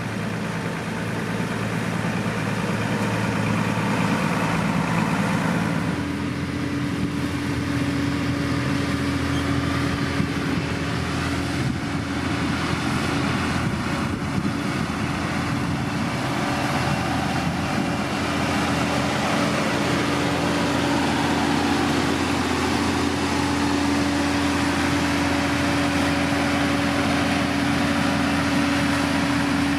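Diesel engine of heavy road-building machinery running steadily. About six seconds in its note changes and a steady hum settles in.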